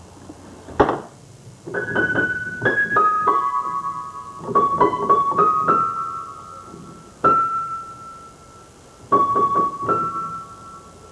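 Piano notes: a sharp click about a second in, then a few irregular chords and single notes struck one after another. Each note rings on and fades before the next.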